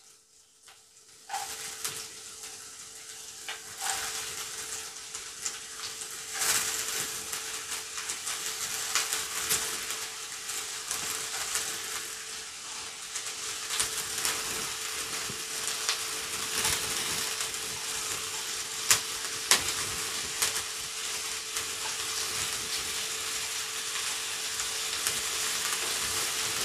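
Sliced onion sizzling in hot coconut oil in a kadai. The frying starts about a second in as the onion goes into the pan and runs on steadily, with frequent sharp crackles and pops as more onion is dropped in.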